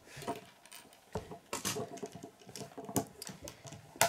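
Plastic Lego bricks being handled and pressed together: irregular light clicks and rattles, with one sharp click near the end as pieces are fitted onto the model.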